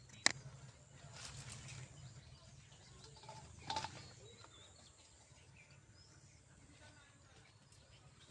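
Faint rural outdoor ambience with a low steady hum and a few distant bird chirps. A single sharp click comes just after the start, and a brief rustle with short chirps follows a few seconds later.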